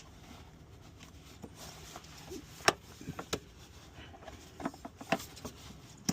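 Several sharp clicks and light knocks as a shift cable end is pressed in and popped off the shifter linkage, the sharpest click a little under three seconds in.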